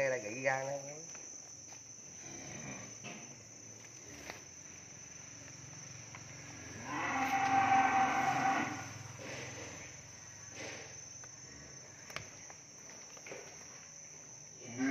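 Cow mooing: the end of one moo right at the start, then one long, steady moo about seven seconds in that lasts about two seconds.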